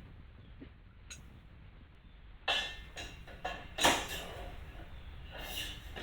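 Clanks and knocks of steel truck bed crane parts being handled and fitted together: a few sharp knocks, the loudest about four seconds in.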